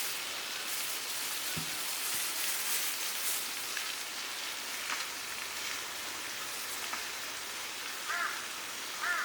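A steady hiss with a few faint ticks, with a crow cawing twice near the end.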